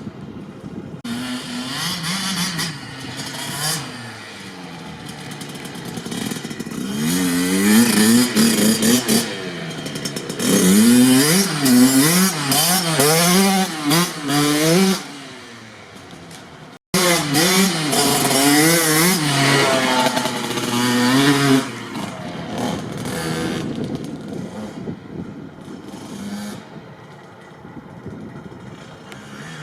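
Kawasaki KX65 single-cylinder two-stroke dirt bike engine revving up and down as the bike is ridden, its pitch climbing and falling over and over, loudest through the middle and easing off toward the end. The sound cuts out for an instant about halfway through.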